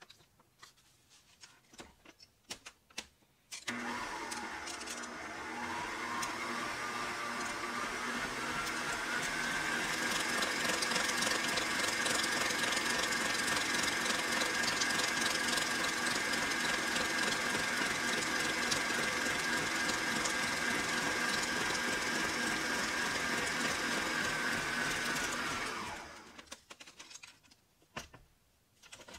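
Electric stand mixer motor starting a few seconds in and beating a thick cheesecake batter of cream cheese, heavy cream and pudding mix. Its whine dips at first, climbs over several seconds, then holds steady for about twenty seconds before switching off near the end. Light handling clicks come before it starts and after it stops.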